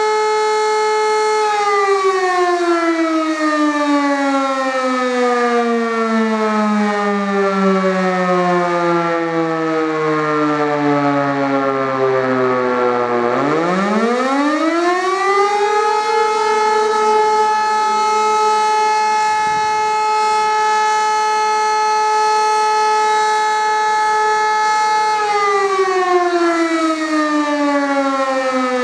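E57 electromechanical siren, heard close up, sounding the fire-alarm signal for a test. Its steady high tone winds down slowly for about twelve seconds, spins back up to full pitch within about two seconds and holds steady, then winds down again near the end.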